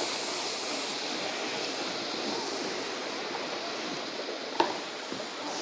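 Coffee beans being pushed with a wide rake across a concrete drying deck, a steady rattling hiss of beans sliding and tumbling, with a sharp knock about four and a half seconds in.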